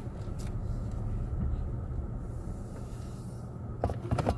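Steady low rumble of a car's engine and tyres heard from inside the cabin while driving, with a quick run of sharp clicks or knocks near the end.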